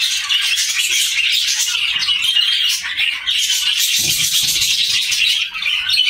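Budgerigars chirping and squawking in a steady, dense chatter of many short high calls.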